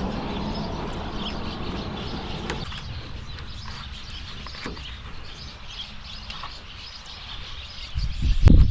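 Small birds chirping on and off in short high calls, with an occasional faint click. Near the end a loud low rumble comes in.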